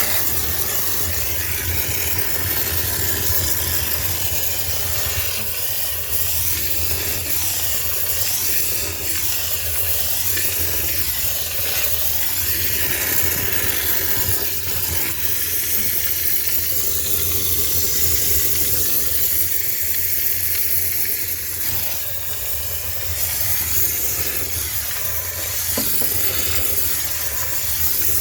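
High-pressure steam cleaner jetting steam to sterilise a sneaker washing machine: a steady hiss over a low hum.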